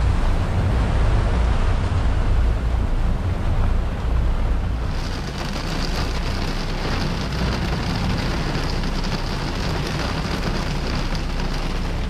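Squall wind buffeting the microphone, with heavy rain on the boat. About five seconds in, a steady high hiss of rain on the window glass comes up over the low wind rumble.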